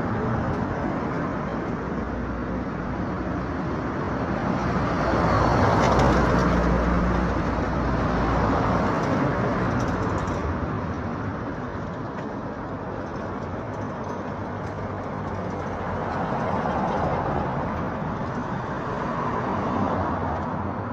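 Road traffic: motor vehicles driving past with engine hum and tyre noise, a louder pass swelling about five to seven seconds in and another soon after.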